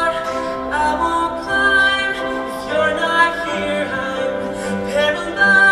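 Show choir singing held, layered vocal harmonies over live keyboard and band accompaniment, with no clear words.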